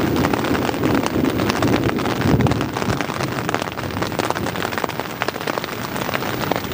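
Heavy rain pattering on a nylon tent fly, a dense, steady spray of drop ticks. A low rumbling runs underneath for the first couple of seconds and then eases.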